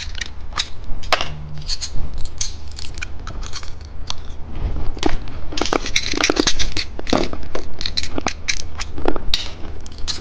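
Close-miked crunching and crackling from a bicycle-shaped candy and its plastic packaging being handled, with many irregular sharp snaps.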